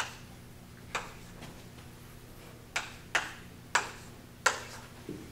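Chalk tapping and clicking against a blackboard while writing: about six sharp, uneven taps spread over a few seconds.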